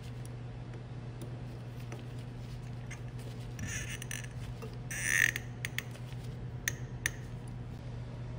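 Small hand tools and metal pump parts being handled: a scraping rustle just before halfway, a louder one about five seconds in, then a few light sharp clicks, over a steady low hum.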